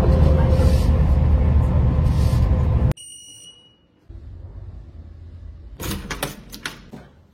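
Loud rushing noise that cuts off suddenly, then a short high electronic beep, then a low hum with a few clicks and knocks near the end.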